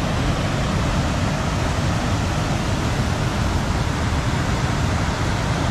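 Steady rush of a brown, rain-swollen river pouring over rock rapids, a constant full roar of water without breaks.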